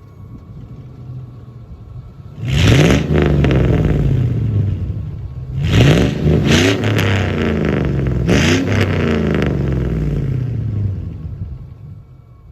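A 5.3L LM7 V8 exhaust through a single-chamber performance muffler, idling and then given three bursts of throttle about three seconds apart. Each burst rises sharply in pitch and falls back, and the sound dies away near the end.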